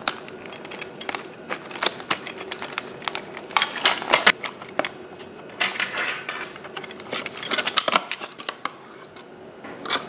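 Stiff clear plastic blister packaging crackling and clicking irregularly as it is pried open and pulled away from its cardboard backing by hand.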